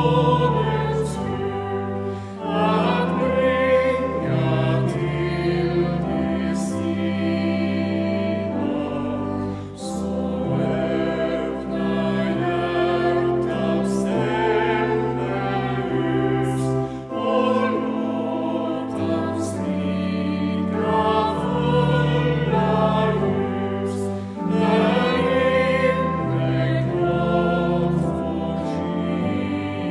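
Choir singing slowly, with long held notes in phrases of about seven seconds.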